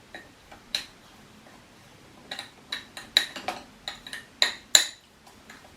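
Spoon clinking against a drinking glass while stirring minced onion with sugar: a run of irregular sharp clinks, each with a brief glassy ring, most of them coming between about two and five seconds in.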